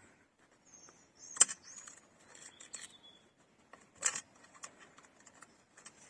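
Small clicks and taps from hands working parts on an outboard motor's lower unit, with two sharper knocks about a second and a half in and about four seconds in.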